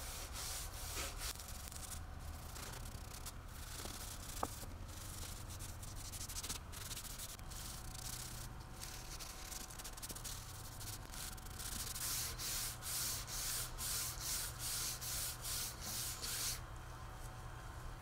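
Cloth rag wiping finish onto a wooden tabletop: faint rubbing strokes over a low steady hum, becoming a regular back-and-forth of about two strokes a second late on before stopping.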